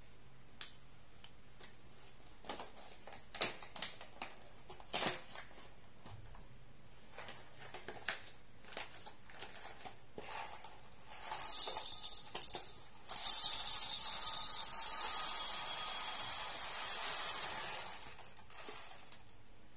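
A few light clicks and taps as a bamboo jar lid, wooden spoon and glass canister are handled, then whole roasted coffee beans poured into the glass canister, a dense rattle with a short break partway through that tapers off near the end.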